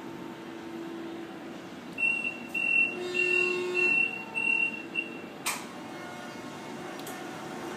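Steady low machine hum, with a run of high electronic beeps of uneven length starting about two seconds in and lasting about three seconds, then a single sharp click.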